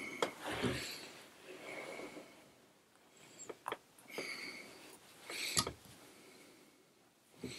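Quiet handling sounds of fingers working at a rabbit-hair streamer fly held in a tying vise: soft rustles every second or two and a few small sharp clicks, two of them a little past the middle and another near the end.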